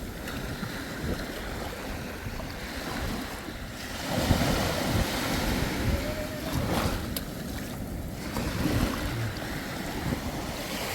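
Water sloshing and splashing around people swimming, with wind buffeting the microphone; the water gets louder for a few seconds in the middle.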